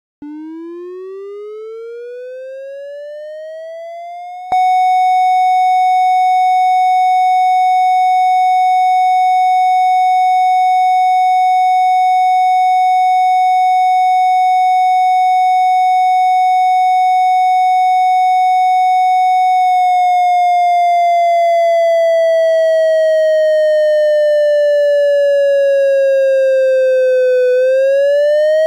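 Synthesized siren: a triangle-wave tone imitating the fire signal of an ASC digital electronic siren controller. It rises in pitch over about four seconds, then jumps louder and holds one steady pitch for about fifteen seconds. It then slowly falls in pitch and begins to rise again near the end.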